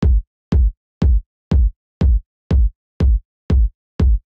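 Electronic kick drum sample looping alone, nine hits about half a second apart. Each hit is a short click dropping into a deep low thump. The kick runs through Ableton's Width Designer rack, which adds stereo width to the mono kick.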